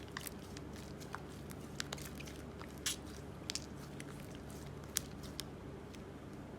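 Chalk crackling and crunching as it is worked into slime: scattered sharp crackles at an uneven pace, the strongest about three and five seconds in, over a steady faint low hum.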